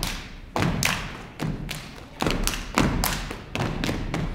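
Step dancers stomping on a wooden stage floor and clapping and slapping in unison, sharp hits in quick rhythmic clusters. Each hit rings on briefly in the hall.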